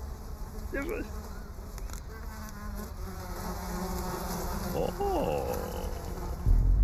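A swarm of flies buzzing steadily, a cartoon sound effect.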